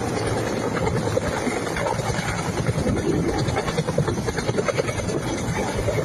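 Firefighting helicopter hovering close by, its two-bladed main rotor beating in a rapid, even pulse over the turbine's steady running.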